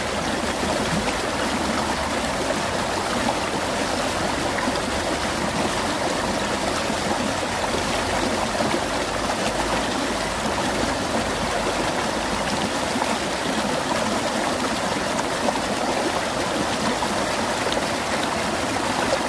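Mountain valley stream flowing: a steady, even rush of running water.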